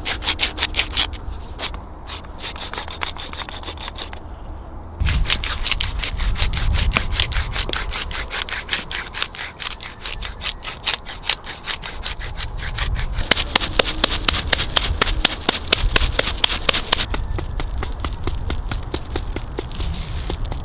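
Rapid, rhythmic scraping strokes, several a second, in a few separate runs.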